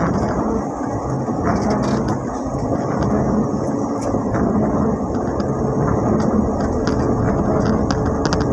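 Inside the cab of a Mitsubishi L300 van on the move in rain: a steady mix of engine and road noise, with scattered light ticks.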